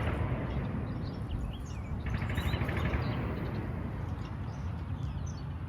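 Birds chirping in short calls over a steady low outdoor rumble, with a brief buzzy trill about two seconds in.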